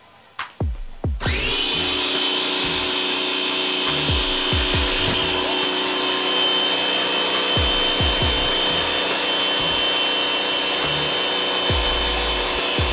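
Black & Decker electric pressure washer switching on about a second in and then running steadily, its motor giving a steady high whine over the hiss of the pressure nozzle's water jet spraying onto floor tiles.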